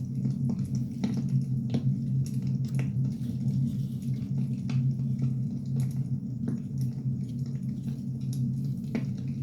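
Firewood burning, crackling with irregular sharp pops over a steady low rumble.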